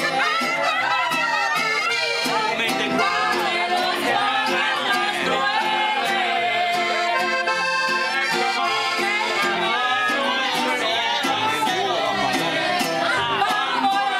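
Live Latin band music with guitars and a steady beat, and a woman singing into a microphone.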